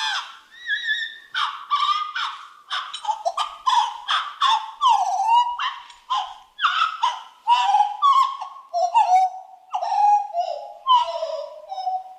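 Birds calling: a rapid, unbroken series of short, harsh calls, many dropping in pitch at the end.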